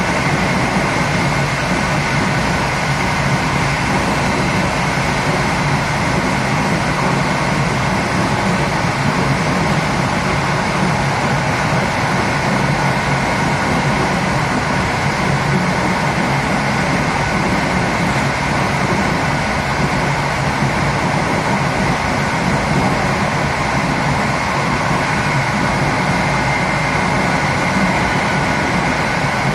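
PKP Intercity TLK passenger train running at speed, heard at the rear of its last coach: a steady rumble and hiss of wheels rolling on the rails, with a faint steady whine above it.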